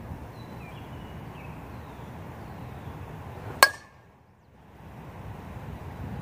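Metal baseball bat hitting a ball once, a sharp ringing ping about three and a half seconds in.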